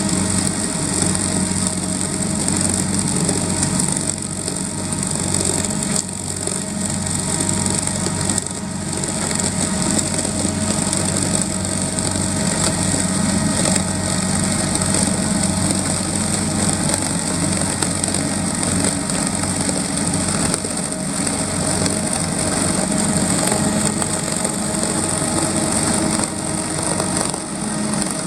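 Potato-harvesting machinery running steadily: a diesel engine hum with a constant high hiss over it.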